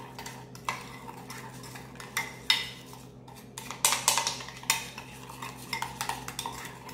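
A utensil stirring and scraping around a small bowl, mixing a mayonnaise dressing, with irregular clinks and scrapes several times a second.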